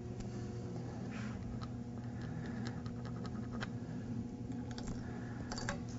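Light clicks and small scrapes of stainless steel bolts being handled and threaded by hand into a waterjet intensifier's manifold, over a steady low hum.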